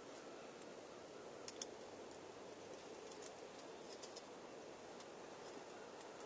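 Near silence: room tone with a few faint, light clicks, two close together about a second and a half in and a few softer ticks later.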